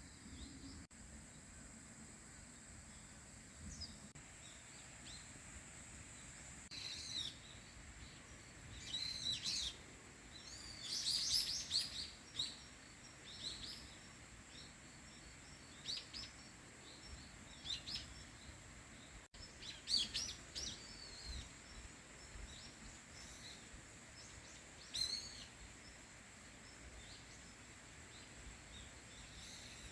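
Small birds chirping in scattered bursts of quick high notes, busiest in the first half and again about twenty seconds in. A thin, steady high-pitched whine runs underneath.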